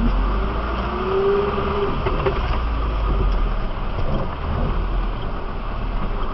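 A 4x4's engine running at low speed as the vehicle crawls over a rough forest trail, heard from inside the cab, with knocks and rattles from the body and a short whine about a second in.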